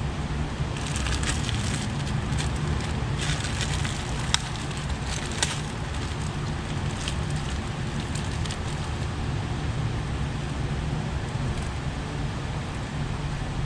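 Ignition coils being handled and compared: light plastic clicks and rustling, mostly in the first half, over a steady low hum.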